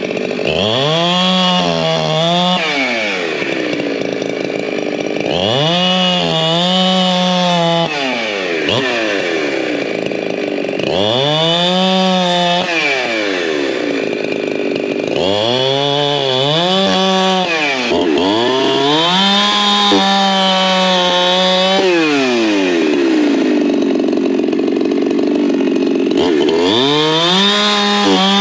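Two-stroke chainsaw revved up and held at full throttle for a second or two, then let back down to idle, about six times over, as the saw is warmed up. Near the end it is cutting into a log.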